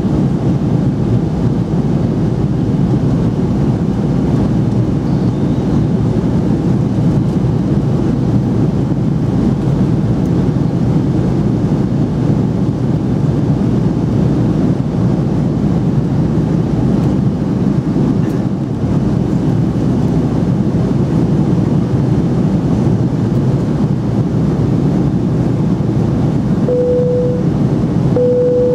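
Steady cabin roar of an Airbus A300B4-600 in flight, engine and airflow noise heard from a window seat over the wing. Near the end, two short chime tones of the same pitch sound one after the other.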